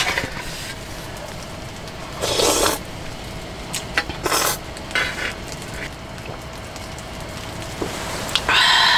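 Ramen noodles slurped from an aluminium mess tin in two or three short slurps, with light clinks of a metal utensil on the tin. A louder, longer sound comes near the end.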